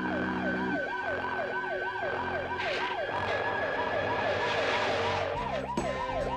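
Cartoon police siren sound effect warbling, its pitch rising and falling about two and a half times a second. It breaks off briefly about five seconds in and comes back. Held low notes of the music score sound under it at the start.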